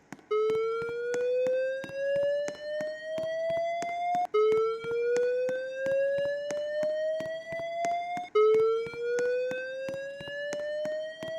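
Fire alarm evacuation tone from an airport's public-address alarm system: a slow 'whoop' that rises steadily in pitch for about four seconds, then drops back and rises again, three times over.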